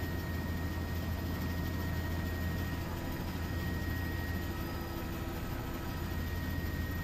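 Steady low aircraft rumble under a hiss, with a thin, high, unchanging tone running through it.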